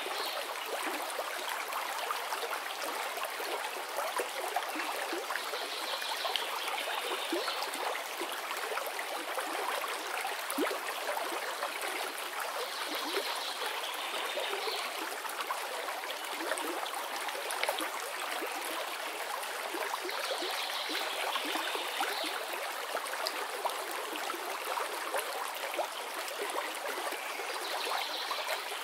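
Aquarium air stone bubbling steadily, bubbles rising and breaking at the water surface in a dense, continuous trickling splash. A brief higher sound recurs about every seven seconds.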